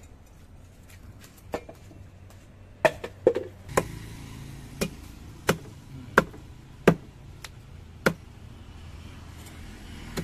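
Heavy cleaver chopping a red grouper on a thick round wooden chopping block: about nine sharp chops, irregularly spaced.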